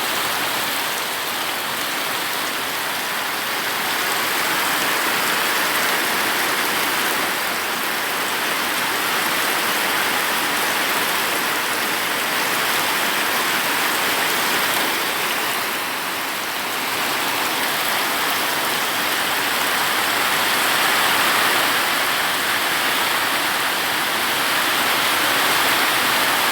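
Heavy rain falling in a steady downpour: an even, continuous hiss of water with no breaks.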